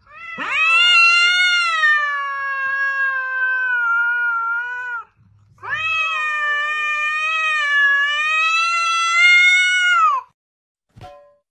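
Ginger cat yowling at another cat in a face-off: two long, drawn-out calls, the first about five seconds and the second about four and a half, each held at a fairly steady pitch with a short break between, then a brief sound near the end. A threat call of an angry cat squaring up to a rival.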